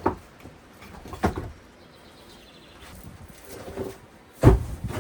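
Heavy stones knocking against each other: two sharp knocks, then a louder, deep thud about four and a half seconds in as a large rock is set or dropped onto the dry stone wall.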